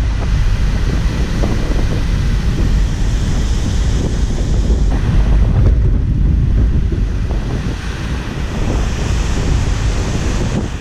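Strong wind buffeting the microphone, with breaking ocean surf underneath, one continuous rough rush with no steady tone.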